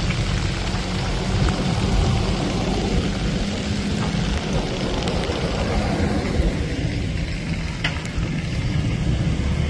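Off-road vehicle working up a muddy mountain trail: engine and tyre noise that runs steady and deep, with a faint click near the end.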